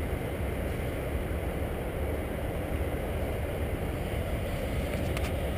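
Heavy truck's diesel engine idling: a steady low rumble, with a few faint clicks near the end.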